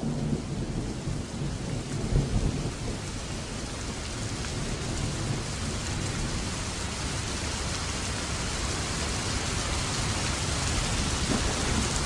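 Steady rain with low rumbles of thunder, the rumble loudest about two seconds in, and the rain's hiss building slightly toward the end.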